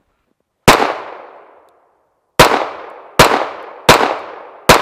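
Five shots from a 9mm pistol: a single shot, then after a pause of nearly two seconds four more in quick succession, under a second apart. Each shot trails off in a fading echo.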